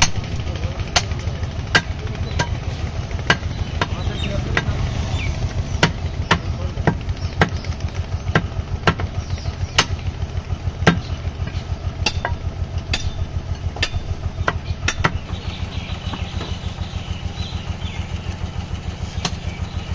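Butcher's cleaver chopping beef on a wooden log chopping block: sharp chops about one or two a second, stopping about sixteen seconds in. An engine runs steadily underneath.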